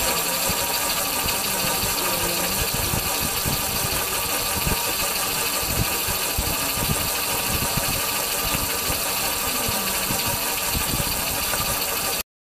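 Small autonomous test vehicle running along a straight path, heard from on board: a steady mechanical running noise with irregular low rumbling. It cuts off suddenly near the end.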